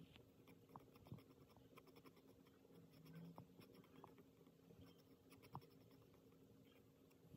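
Faint scratching of a wooden graphite pencil on paper as a line is drawn, with scattered small ticks.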